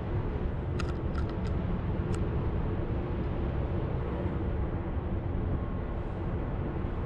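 Steady low rumble and hum inside a cable car gondola as it travels along its cable, with four short faint clicks in the first two seconds.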